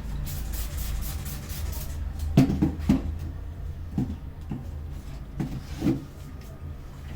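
A massage practitioner's hands striking a head in a series of dull thumps in small clusters, over a steady low hum. A quick run of light, crisp high taps comes first.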